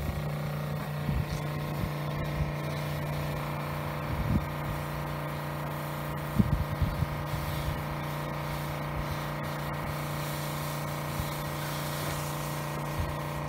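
Soft-wash spray rig's pump running with a steady hum while cleaning solution is sprayed at low pressure onto cedar shakes, with a light spray hiss and a few knocks, the loudest about halfway through.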